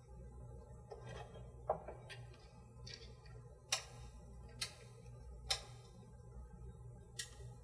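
Test-lead plugs and a four-wire adapter being pushed into a Fluke 8808A bench multimeter's input jacks and the probes handled: about five sharp plastic clicks and taps, spread out irregularly, over faint background music.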